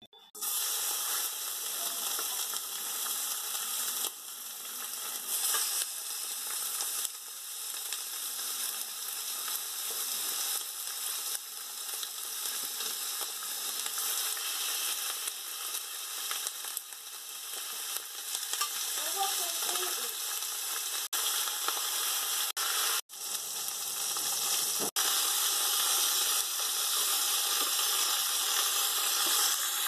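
Chicken pieces frying in hot oil in a stainless steel pan: a steady sizzle, broken by a few brief gaps past the middle.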